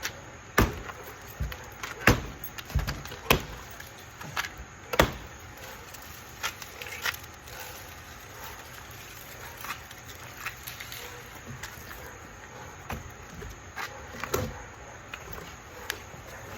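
Irregular sharp knocks and clicks of a large boxed tool storage unit being unpacked: several loud knocks in the first five seconds, then fainter, sparser clicks.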